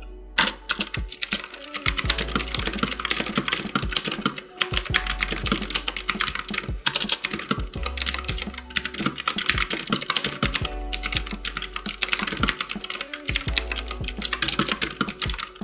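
Continuous typing on a budget mechanical keyboard with blue switches, the Aula Fireshock V5: a rapid stream of sharp key clicks, broken by a few short pauses.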